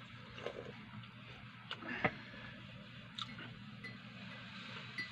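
Close-up chewing of a shawarma wrap: mouth clicks and smacks, the sharpest click about two seconds in, over a low steady hum. Faint short high chirps come in near the end.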